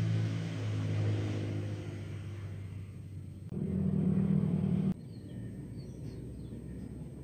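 Low, steady engine hum of a motor vehicle running nearby, changing abruptly about three and a half and five seconds in. Faint high chirps come in near the end.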